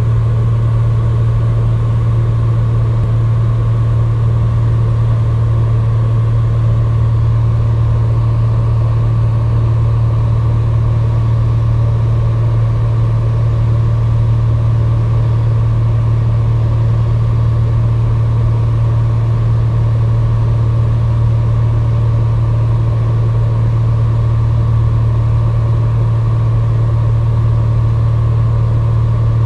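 Socata TB20's Lycoming IO-540 six-cylinder engine and propeller running steadily in flight, heard from inside the cabin as a loud, constant low drone with an even hum above it.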